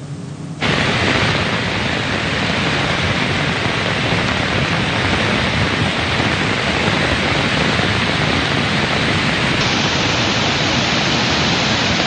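Muddy flash-flood water rushing through a forest stream at a waterfall: a loud, steady rush that starts suddenly about half a second in. The torrent is running high and fast after heavy rain in the mountains.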